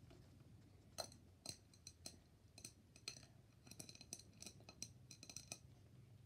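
A run of faint, short, sharp clicks at irregular spacing, about a dozen of them, starting about a second in and stopping shortly before the end.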